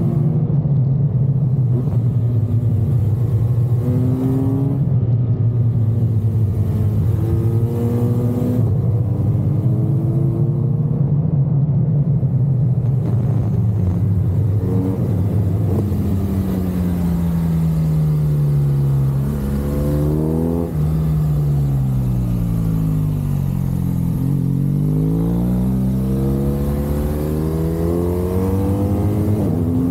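BMW R1200 GSA's boxer-twin engine running hard through a series of bends. Its pitch climbs under throttle, drops suddenly a few times, and sweeps down and back up as the bike slows and pulls away again.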